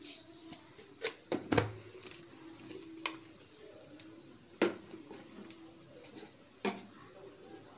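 Mustard seeds spluttering in hot oil in an aluminium kadai: sharp pops at irregular intervals, about eight over several seconds.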